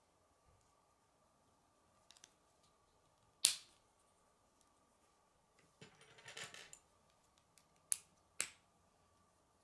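Plastic K'nex rods and connectors being snapped together by hand: sharp single clicks, the loudest about a third of the way in, a short run of rattling clicks about two-thirds in, and two more clicks near the end.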